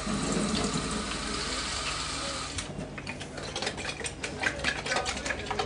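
Tap water running into an empty cardboard tomato-purée carton, cutting off about two and a half seconds in. A quick irregular run of clicks and sloshes follows as the water is shaken around inside the carton to rinse out the leftover tomato.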